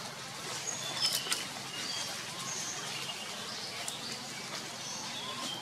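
Forest ambience: scattered short, high bird chirps over a steady background hiss, with a couple of sharp clicks about a second in.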